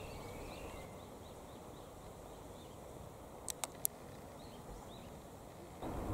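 Faint rural outdoor ambience with small birds chirping now and then. There are three sharp clicks in quick succession about three and a half seconds in, and a louder low rumbling noise starts just before the end.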